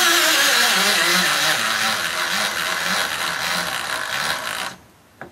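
HiKOKI pen-type cordless driver drill driving a 65 mm coarse-thread wood screw into timber. Its motor pitch drops as the screw loads it, runs on under strain for about four and a half seconds, then stops. The tool cannot drive the screw all the way in.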